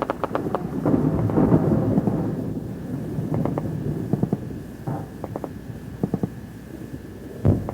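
Gunfire in a firefight: clusters of sharp shots in quick succession, with a long rolling rumble about a second in and a louder, deeper shot near the end.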